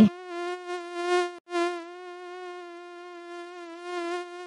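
Mosquito buzzing sound effect: a steady whine with many overtones, swelling and fading slightly. It cuts out for a moment about a second and a half in, then carries on.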